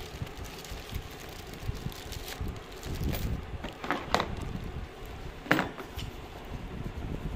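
Handling noise from unpacking a power drill: plastic wrapping crinkling and a hard plastic carry case being knocked, with a few sharp clicks and taps in the second half.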